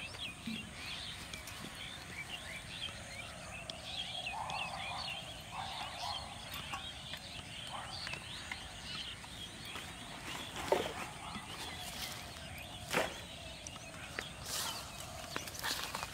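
Small birds chirping in a steady, busy chorus, with a few sharp taps or clicks in the second half.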